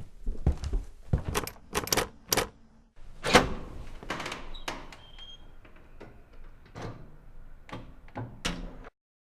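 A series of about a dozen knocks and thuds, some in quick pairs. One louder bang about three seconds in rings on longer than the rest. The sound cuts off abruptly near the end.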